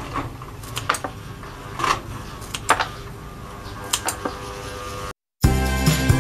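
Scissors snipping dried orange peel, a series of crisp, irregularly spaced snips. Near the end the sound cuts out briefly and louder background music comes in.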